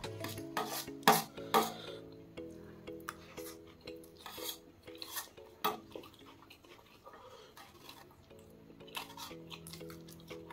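Metal spoon scraping and clinking against a stainless steel plate while scooping up chow mein, in a string of short scrapes, the loudest about a second in. Soft background music plays underneath.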